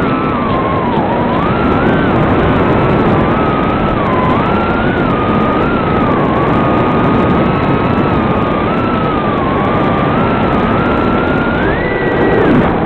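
Realacc Swallow 130 FPV racing quadcopter's motors and propellers, heard through its onboard DVR recording: a buzzing whine that rises and falls in pitch with the throttle over a heavy rushing noise, climbing higher for a moment near the end.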